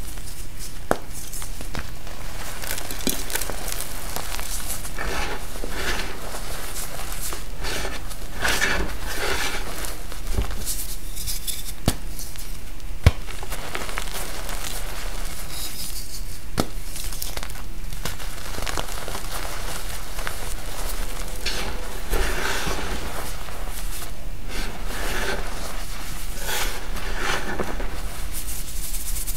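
Blocks of dyed gym chalk crushed and crumbled between the fingers: a gritty, crunching crackle in irregular flurries as the chalk breaks down to powder, with a few sharp snaps as pieces break off.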